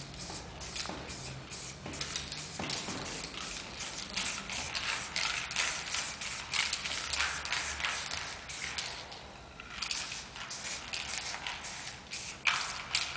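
Aerosol spray paint cans hissing in rapid short bursts as paint is sprayed onto a wall, with a brief pause about nine seconds in.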